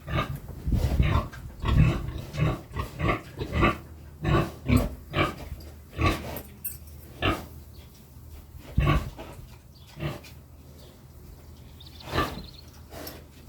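A pig grunting over and over in short grunts, coming quickly for the first several seconds and then more spread out. The owners put her fussing down to thirst.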